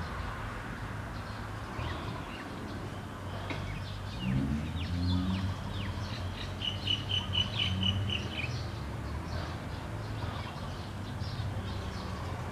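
Small birds chirping, with short high calls and a fast trill of repeated notes about six to eight seconds in, over a steady low hum.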